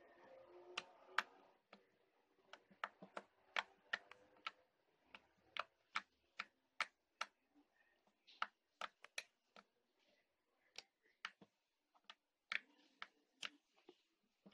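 Fluffy slime being poked and squeezed by fingers, giving faint, irregular sharp clicks and pops, a few each second.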